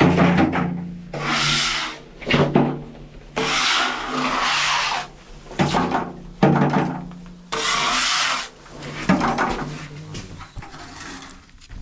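Hand scraper scraping oil sludge off the inner wall of an opened oil tank, in about seven rasping strokes of roughly a second each, with short pauses between them.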